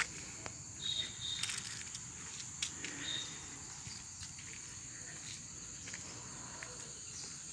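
Steady, high-pitched insect drone from the surrounding trees, with a few light footsteps and clicks in the first three seconds.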